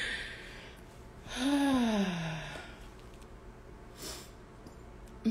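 A woman's long voiced sigh about a second and a half in, breathy and falling in pitch, after a short breath at the start.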